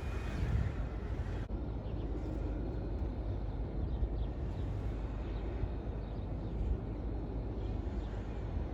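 A car's engine running nearby, a steady low rumble.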